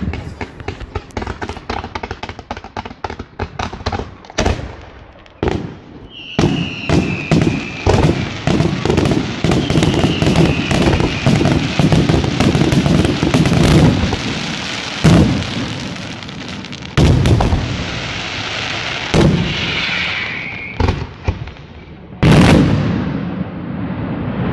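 Aerial fireworks display: a quick run of crackling pops, then a dense barrage of bursts with a few whistles sounding over it, and several heavy shell bangs in the second half.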